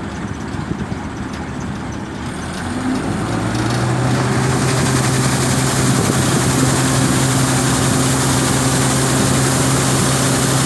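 Combine harvester engine running, picking up speed about three seconds in and settling into a louder steady hum with a rising hiss, while the machine unloads harvested mung beans through its auger pipe into a tractor trailer.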